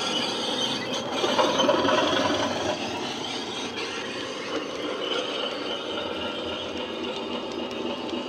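DCC sound decoder in an OO-gauge Bachmann Class 37 model playing the engine sound of a Mirrlees-engined Class 37/9 diesel through its small speaker as the locomotive passes. It is loudest about a second or two in, then carries on a little quieter as the coaches follow.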